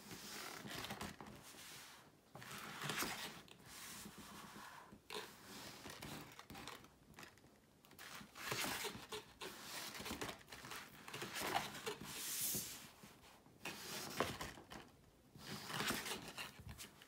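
Paper and card rustling and sliding as the pull tab of a paper pop-up mechanism is pulled and pushed back and forth, its folded parts rising and collapsing in repeated swishes.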